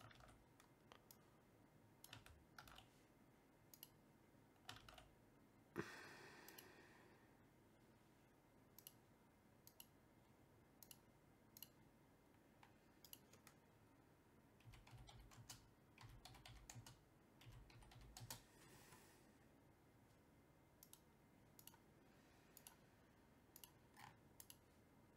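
Faint typing on a computer keyboard: scattered, irregular key clicks, with one sharper click about six seconds in and a few soft low bumps past the middle.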